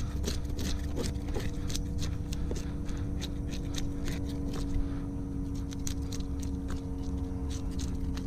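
Quick, irregular scraping clicks, several a second, from a dive knife working over a mullet. They ride over a steady low engine hum.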